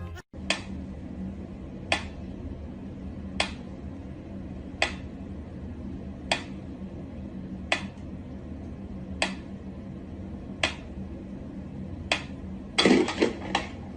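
A sharp click or tap repeating evenly, about once every one and a half seconds, over a steady low hum, then a quick flurry of louder clatters near the end.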